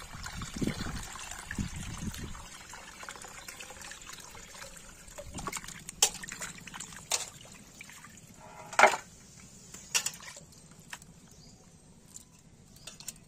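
Water running into a steel bowl of raw chicken pieces, and hands sloshing and rubbing the chicken in the water to wash it. This is followed by a few sharp knocks, the loudest about nine seconds in.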